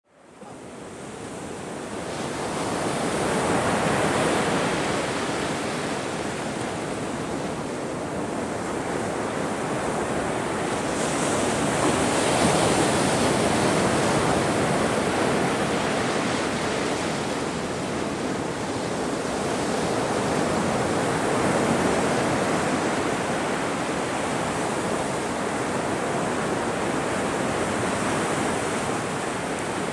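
Ocean surf: waves washing ashore in a continuous rush of noise that fades in from silence over the first few seconds, then swells and eases with each wave, about every eight or nine seconds.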